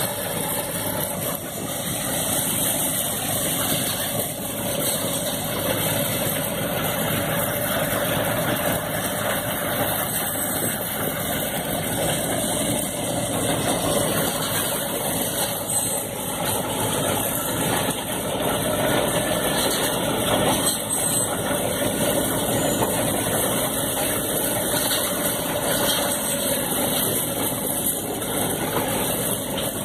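An engine running steadily at an even speed, with no pauses or changes in pitch.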